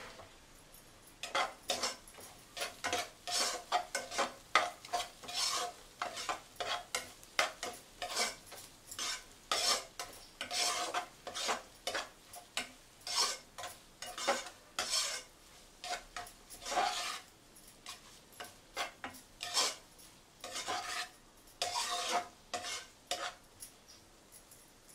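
Metal spatula scraping and stirring scrambled egg and spices around a nonstick pan, in a run of quick irregular strokes with short pauses. It starts about a second in and stops shortly before the end.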